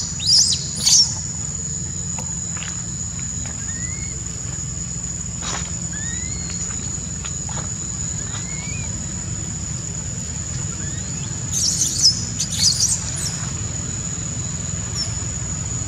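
High-pitched distress squeals of a newborn macaque being grabbed and dragged by an adult, a few short ones about a second in and a cluster around twelve seconds in, over a steady high insect drone and a few short rising bird chirps.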